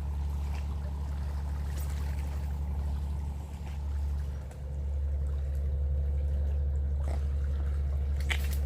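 Boat engine running steadily with a low drone, water splashing and trickling against the hull, and a couple of sharp clicks near the end.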